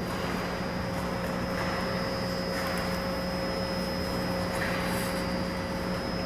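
Steady mechanical hum of an indoor ice rink's air-handling machinery, with a few soft scrapes of skate blades on the ice.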